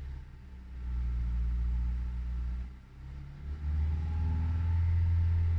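Hyundai i20 Elite's four-cylinder petrol engine revved to about 2500 rpm while stationary, heard inside the cabin. The low engine drone rises, falls back about three seconds in, and rises again.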